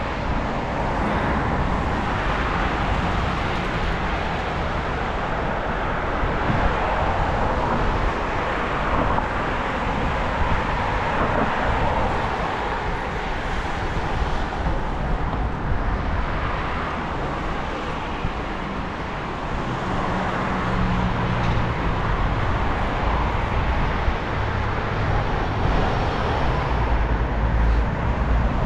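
Road traffic passing on a busy town road, heard from a moving bicycle: a steady whoosh of cars and tyres over a low rumble. A deeper, steady engine hum joins about two-thirds of the way through.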